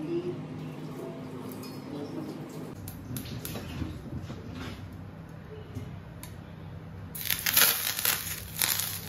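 Hot sesame oil poured over steamed fish, sizzling and crackling loudly from about seven seconds in. Before that, a few small clicks and clinks of kitchenware over a low steady hum.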